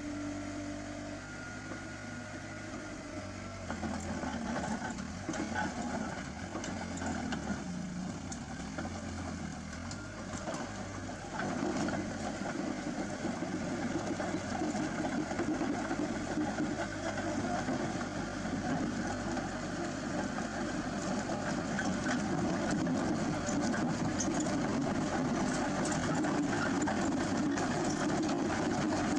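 Heavy earthmoving machine's diesel engine running steadily, getting louder about four seconds in and again near twelve seconds.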